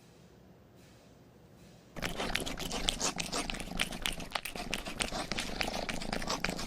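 Faint hiss for about two seconds, then a cat heard close up, purring among dense crackly clicks and rustling.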